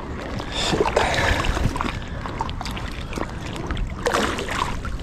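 Water sloshing and splashing right around a float tube, over a constant low rumble, with louder splashing about a second in and again near the end.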